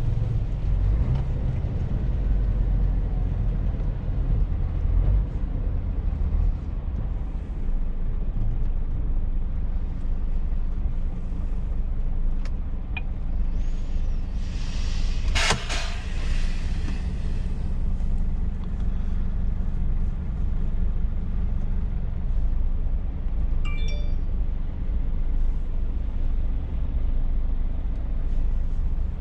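Scania truck's diesel engine heard from inside the cab, rumbling as it rolls in traffic and then idling steadily at a standstill. About halfway through, a short loud hiss of compressed air from the air brake system.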